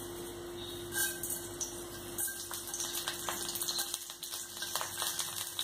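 Mustard seeds sizzling in hot oil in a kadai, with small crackles and pops that become more frequent after about two seconds.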